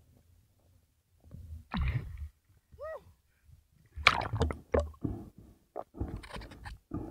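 Seawater gurgling and splashing around a diver's camera as it breaks the surface and goes under again: irregular low rumbles and sharp splashes, loudest about four seconds in.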